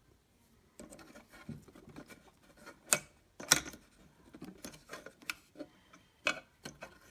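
Small irregular clicks and taps as the tonearm of a Victrola turntable is unclipped from its rest and swung out toward the platter, with a few sharp, louder clicks among them.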